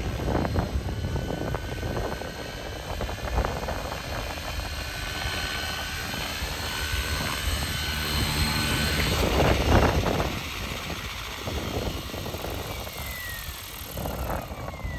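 Align T-Rex 550 electric RC helicopter in flight: its rotor whirs with a steady, high motor-and-gear whine as it comes down to a low hover, loudest about ten seconds in. Near the end the whine falls in pitch.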